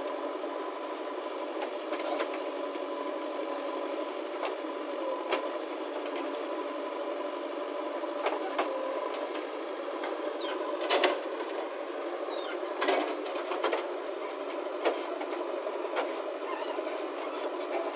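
A machine running with a steady hum, with scattered clicks and a few short squeaks about two-thirds of the way through.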